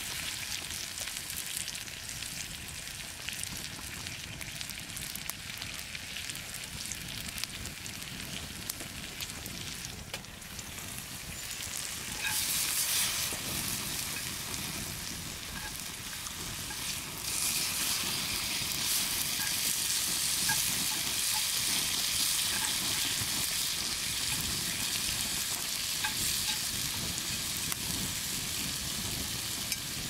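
Pork slices sizzling and frying in a cast-iron skillet as they are turned with chopsticks. The sizzle grows louder about twelve seconds in and again a few seconds later.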